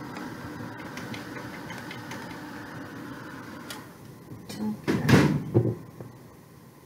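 Craft heat gun running steadily, switched off about four seconds in, followed by a short cluster of loud knocks and handling noise as it is put down on the table.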